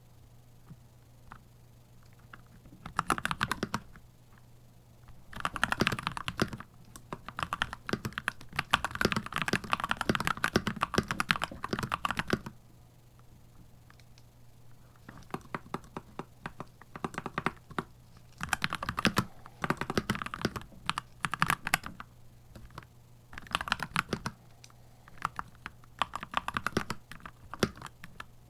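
Typing on a Keychron C2 Pro 8K mechanical keyboard: fast runs of keystrokes in several bursts separated by short pauses, the longest run lasting about seven seconds. A faint low hum sits underneath.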